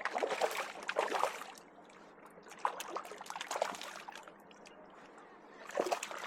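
A hooked fish splashing at the water's surface as it is reeled in to shore, in three short bouts of splashing: at the start, around three seconds in, and near the end.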